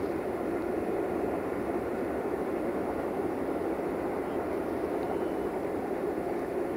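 Steady low rumble of a diesel locomotive, an LDE2100 (class 060-DA) with its Sulzer engine, with no distinct tones or knocks.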